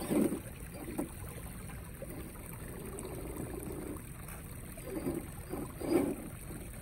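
FMS FCX10 LC80 1/10-scale RC crawler with a brushless motor, whirring in short surges as it creeps over rocks in a shallow stream, with water trickling around it.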